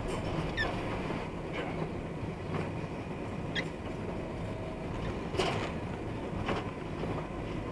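Work truck's engine and road rumble heard from inside the cab as it slows to a stop on an icy, slushy road. Light clicks and short squeaks come roughly once a second over the steady rumble.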